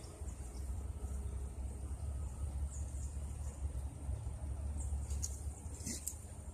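Steady high-pitched insect drone, like crickets, over a low rumble of wind on the microphone, with a brief sharp sound about five to six seconds in.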